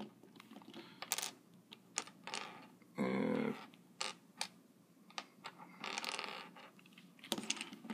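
Small 3D-printed plastic puzzle pieces clicking and clattering as they are picked up from a wooden tabletop and snapped into a partly built cube, in a string of light clicks and taps. A brief hum comes about three seconds in.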